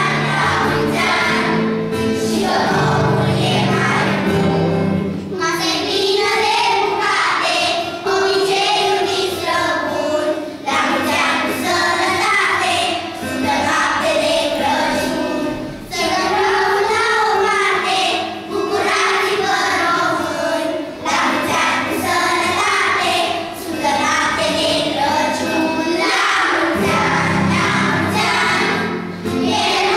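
A group of children singing together in chorus, with low sustained accompaniment notes in the first few seconds and again near the end.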